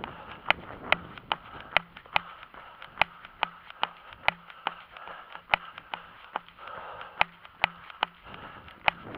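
A runner's footsteps on an asphalt road, sharp even strikes about two and a half times a second, picked up by a camera carried on the runner.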